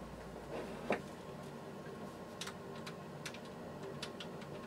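A few faint, scattered clicks and light taps, the clearest about a second in, from hands handling parts inside an opened desktop computer's plastic case.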